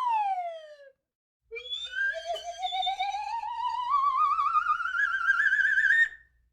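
Cartoon sound effect: a whistle-like tone slides down and stops about a second in, then a long warbling tone slides slowly upward and cuts off suddenly near the end.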